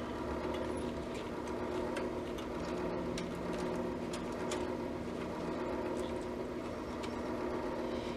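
Scattered light clicks and taps of small parts and wires being handled on a radio chassis, over a steady background hum.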